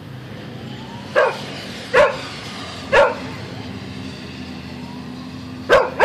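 A dog barking: single barks about a second apart, then two in quick succession near the end, over a steady low hum of traffic.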